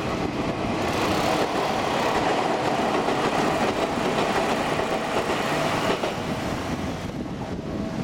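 Tokyu Tamagawa Line electric commuter train passing through a level crossing. Its noise swells about a second in and falls away about six seconds in. The crossing's warning bell keeps ringing at a steady pitch under it, heard clearest at the start and near the end.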